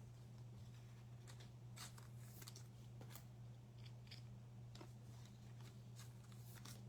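Near silence: a steady low hum under faint, scattered ticks and clicks from trading cards being handled.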